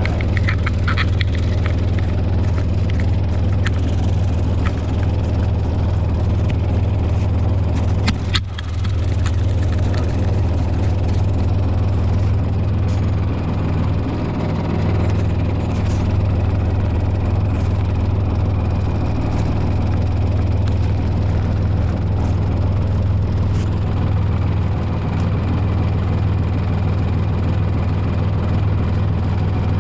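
Diesel engine of a Komatsu PC28 mini excavator running steadily at a constant speed, with a low, even hum. A single sharp knock about eight seconds in.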